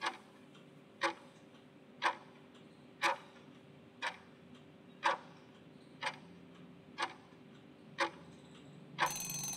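Countdown-timer ticking sound effect: a sharp tick once a second, nine times, over a faint steady hum, ending about nine seconds in with a short, brighter ringing sound as the countdown runs out.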